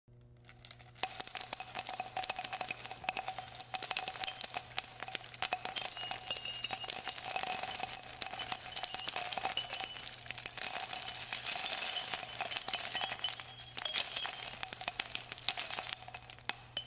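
.50 caliber shell casings dropping in a steady stream, clinking and ringing against one another. The stream starts about a second in and pauses briefly near the end before carrying on.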